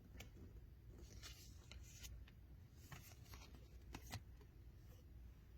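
Faint handling of tarot cards: cards flipped and slid one over another, with several soft, short papery ticks over low room hum.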